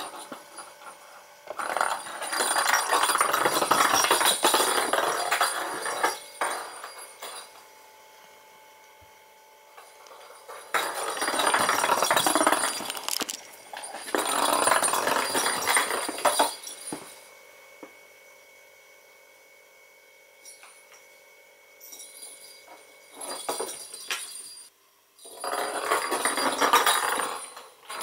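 A small perforated plastic cat-toy ball rattling and clinking as a kitten bats it and it rolls across a hardwood floor, in several bursts of a few seconds each with quiet gaps between.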